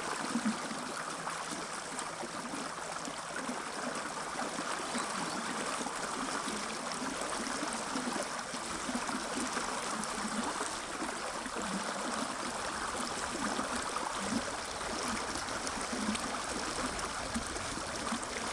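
Steady rush of a fast-flowing mountain river's strong current.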